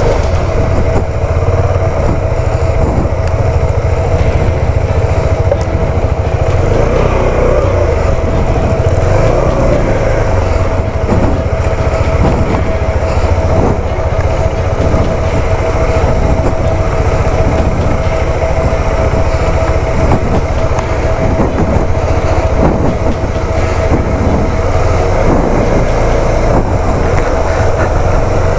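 Motorcycle riding over a rough, rocky off-road track: a steady engine drone with irregular knocks and rattles from the bumps.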